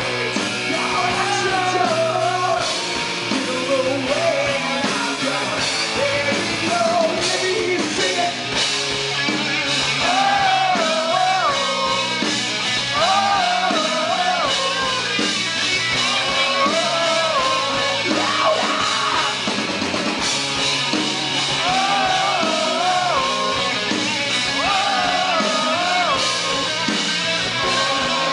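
Live rock band playing: electric guitars and a drum kit under a sung melody that rises and falls in repeating phrases.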